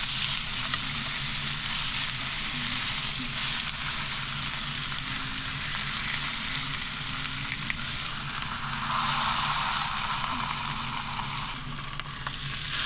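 Ribeye cap steak sizzling steadily in beef tallow in a hot cast-iron skillet as it sears, with a low steady hum underneath.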